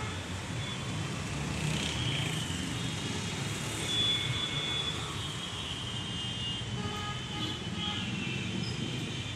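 Busy street traffic: a steady rumble of vehicles with short, high horn toots now and then.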